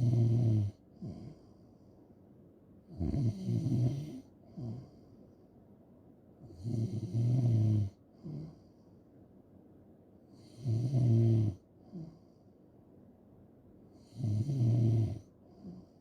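A sleeping person snoring in a steady rhythm. There are five low snores, about one every three and a half to four seconds, each lasting about a second and followed by a short, softer puff of breath.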